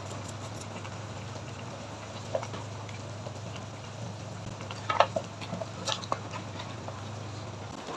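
Pot of beef rib soup boiling steadily under a low steady hum, which stops just before the end. About five to six seconds in, a metal ladle clinks against the stainless steel pot several times as the soup is stirred.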